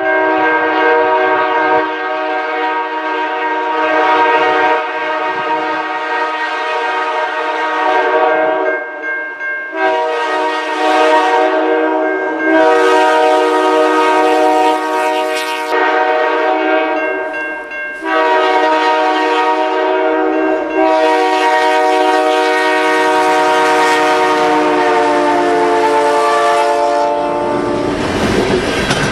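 Multi-chime air horn of a CN EMD GP38-2 locomotive sounding a series of long blasts with short breaks, the last held longest, its pitch sagging slightly as the engine passes. Near the end the horn stops and the rumble and wheel clatter of the freight cars rolling by takes over.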